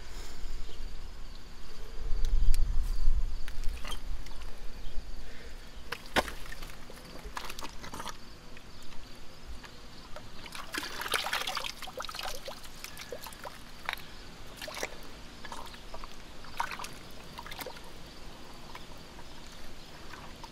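A hand sloshing and groping through muddy water in a flooded privy pit, with a splashy stretch about halfway through and a few sharp knocks along the way. A low rumble about two seconds in is the loudest part.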